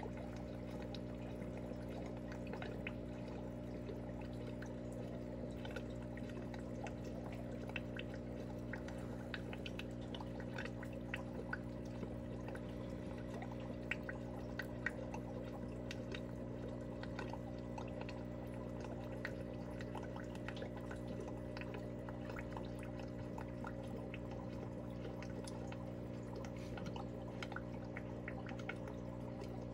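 Air-driven aquarium sponge filter running: a steady low hum under a constant patter of small bubbling and dripping water sounds at the surface.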